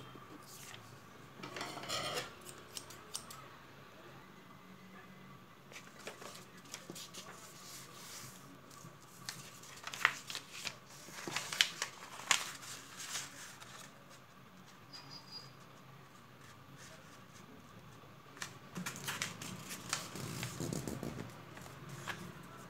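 A sheet of paper rustling and crinkling as hands fold it and press along the creases, coming in scattered bursts with the loudest around the middle.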